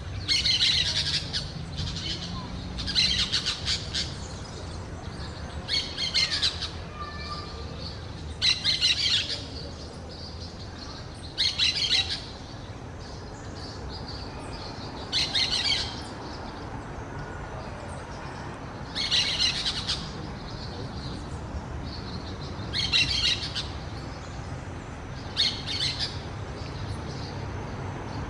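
Orange-chinned parakeet giving short bursts of rapid chattering calls, nine in all, roughly every three seconds.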